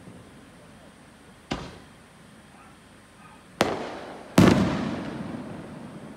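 Aerial firework shells bursting: three sharp booms, one about a second and a half in and two close together a little past halfway, the last one loudest, each followed by an echo dying away.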